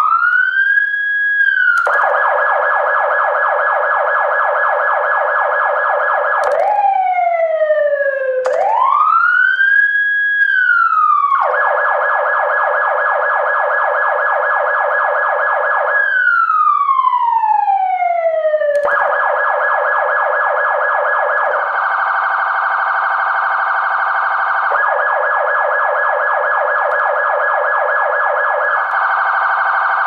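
Electronic emergency-vehicle siren cycling through its tones. Slow wails rise and fall in pitch, alternating with long stretches of a very fast warble (yelp/phaser). It starts with a rising wail, turns to a fast warble about two seconds in, sweeps down and up again near 7 to 11 seconds, then warbles, gives one long falling sweep around 16 to 19 seconds, and warbles rapidly to the end, changing warble tone a couple of times.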